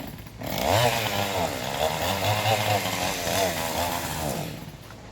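Chainsaw running under load, its pitch rising and falling as it cuts through a log. It starts about half a second in and stops shortly before the end.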